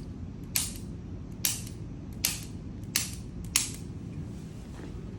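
Five sharp clicks from a chiropractic adjustment, a little under a second apart, over a steady low background rumble.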